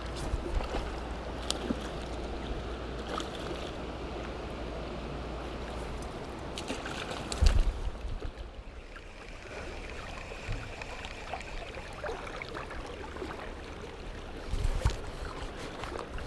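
Steady rush of flowing stream water, with wind rumbling on the microphone for the first six seconds or so, and a few short thumps, the loudest about seven and a half seconds in.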